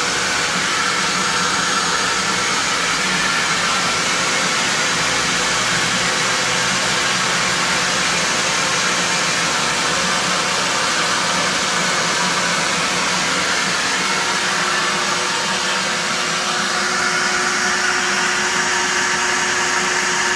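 A motor running steadily with a loud, even rush of air, like a blower or vacuum.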